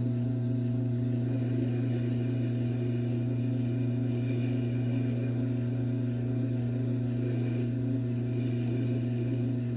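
Tormek T4 sharpening machine's motor running with a steady low hum while a knife edge is drawn along its spinning leather honing wheel.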